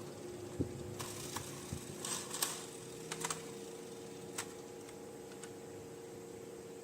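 Light, irregular clicks and taps of small plastic toy pieces and packaging being handled, with a short flurry about two seconds in, over a faint steady hum.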